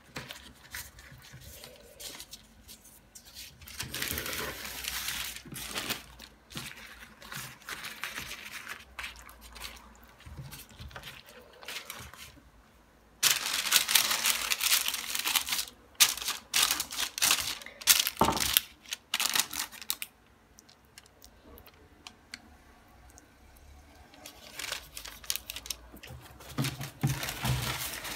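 Baking paper rustling and crinkling under hands shaping and lifting a twisted puff-pastry braid onto a lined baking tray. The rustling is loudest for several seconds in the middle, as a quick run of crackles, with softer rustles before and after.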